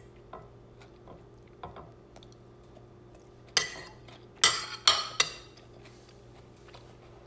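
A metal fork scraping and clinking against a plate while scooping up the last of some cauliflower rice. There are a few light taps at first, then four louder scrapes around the middle.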